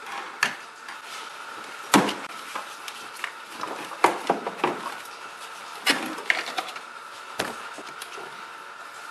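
Irregular plastic clicks and knocks from hands working the engine's air box, its lid and panel air filter being taken out; a handful of sharp snaps, the loudest about two and four seconds in.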